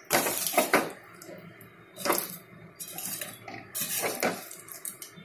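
Perforated steel ladle scraping and knocking against an aluminium kadai while stirring fried sweet mathri pieces in sugar syrup that is drying into a coating. There are a few sharp knocks, the loudest at the start and about two seconds in, with scraping between them.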